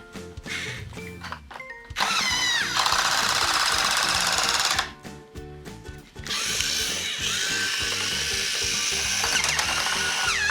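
Battat take-apart toy's battery drill running in two runs of a few seconds, its small motor whining as it drives screws into the toy crane. The first run starts about two seconds in and stops after nearly three seconds; the second starts about six seconds in, over steady background music.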